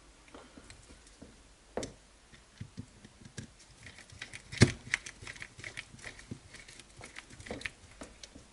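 Hand tools and screws working on a 1:8 RC buggy chassis as screws are driven in by hand: scattered small clicks, scrapes and taps at an uneven pace, with one sharper knock about four and a half seconds in.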